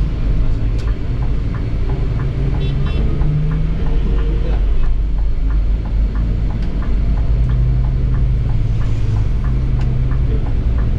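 Scania K360iB coach under way, its five-cylinder diesel engine running steadily with a low drone whose pitch shifts slightly, with light ticking rattles from the cab throughout.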